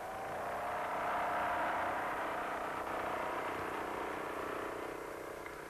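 Hanomag R12 tractor engine running steadily as the tractor drives across a field, swelling at first and then slowly fading.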